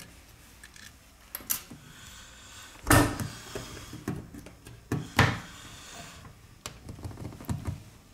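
Scattered sharp clicks and knocks of a smartphone and small repair tools being handled on a work surface during disassembly, with the two loudest knocks about three and five seconds in.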